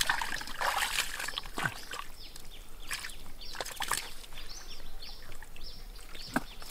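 Hands groping and stirring in shallow muddy water, sloshing and splashing irregularly with sharp wet slaps.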